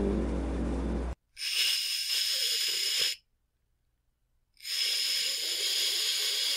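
Cat hissing twice, each hiss about two seconds long, with a silent pause between. Before the first hiss, a low pitched sound over a steady hum cuts off about a second in.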